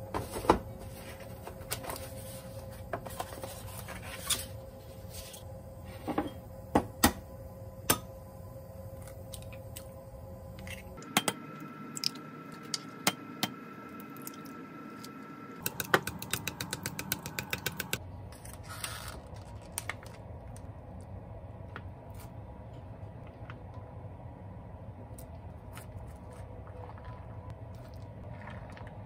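Eggs tapped and cracked on the rim of a glass measuring cup: scattered sharp clicks and knocks. About halfway through comes a quick run of clicks, like chopsticks beating egg against the glass. A steady low hum runs underneath.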